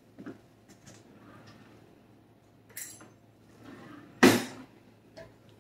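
Kitchen handling sounds: light knocks and clinks of dishes and cutlery, with one sudden louder clatter about four seconds in.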